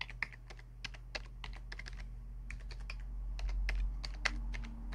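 Computer keyboard keys being typed in an irregular run of quick clicks as a password is entered, with a low steady hum underneath.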